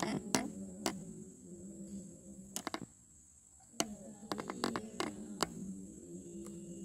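Steady high-pitched drone of night insects, over a low, sustained voice chanting in the background. About a dozen sharp clicks are scattered through it, several of them close together in the middle.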